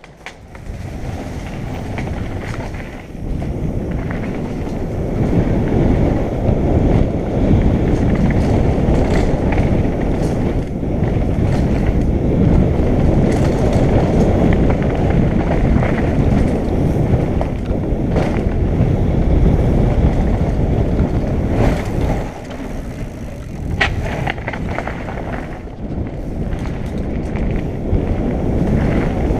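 Mountain bike running downhill on a rough trail: wind on the microphone and the tyres and bike rattling over the ground in a loud, uneven rumble that builds over the first few seconds, with a few sharp knocks along the way.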